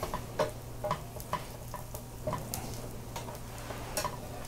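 Irregular clicks and light taps of cooking utensils stirring in a frying pan over a steady low hum.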